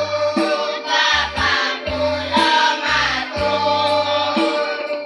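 A girls' school choir singing together over instrumental backing, with low sustained bass notes that change about once a second.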